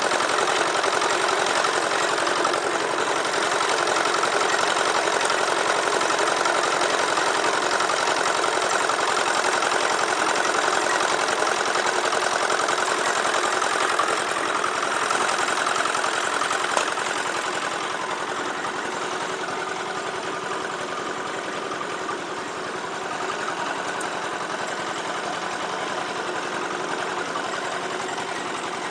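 Small single-cylinder diesel engine of a portable drum concrete mixer running steadily, with a couple of brief knocks midway; it gets a little quieter after about 17 seconds.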